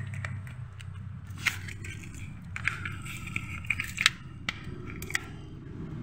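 Irregular sharp clicks and scrapes of hands and tools handling parts in a car's engine bay, over a low steady hum.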